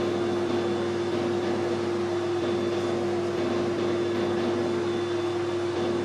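Metal lathe running steadily with a constant hum and one steady whining tone from its drive, while a die in a tailstock die holder cuts a thread on a small bar turning in the chuck.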